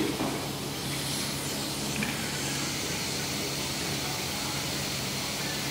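Dental suction tube hissing steadily at the patient's mouth, over a low steady hum, with a faint click about two seconds in.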